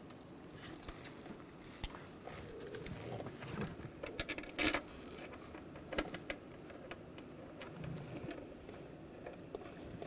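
Scattered light metal clicks and handling noise from intake manifold bolts being threaded in by hand, with a louder cluster of clicks a little before the middle.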